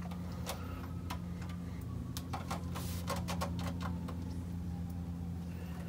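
Scattered light clicks and taps as an aftermarket air filter is twisted back and forth and pushed onto its billet adapter on a small engine, over a steady low hum.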